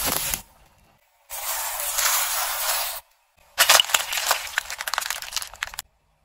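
A car tyre rolling over plastic bottles of coloured liquid, crushing them in a rapid run of cracks, snaps and crunches lasting about two seconds. Before that, a steady hiss lasts under two seconds.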